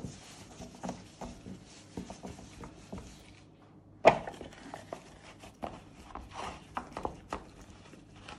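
Soft handling noises as a filled bread-dough ring is lowered into a metal ring mould and pressed into place by gloved hands: rustling with small scattered knocks, and one sharper knock about four seconds in.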